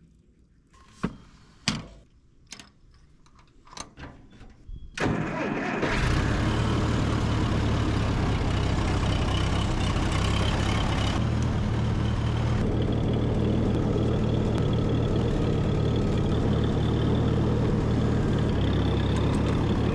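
A few scattered clicks and knocks, then about five seconds in an Allis-Chalmers tractor's engine starts and runs steadily.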